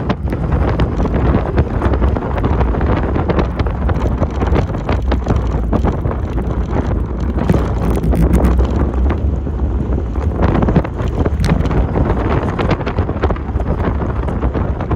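Honda S2000 driving along at road speed, heard from inside the cabin: a steady low engine and road drone under uneven wind buffeting on the microphone.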